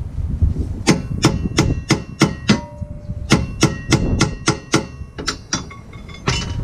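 Hammer striking metal on a Dodge Neon's rear suspension, each blow ringing: a quick run of about seven strikes, a short pause, another run of about seven, then a few lighter taps and one last hit near the end.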